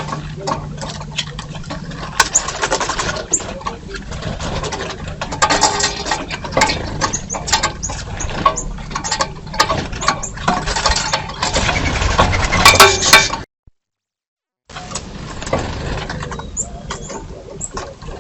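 Birds at a feeder picked up by a trail camera's microphone: a busy jumble of sharp taps and clicks with short chirps. The sound drops to dead silence for about a second just past the middle, where one recording ends and the next begins.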